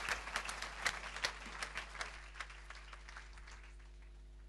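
Congregation applauding, the clapping thinning out and dying away over the first three seconds. A faint steady sound of several held tones remains after it.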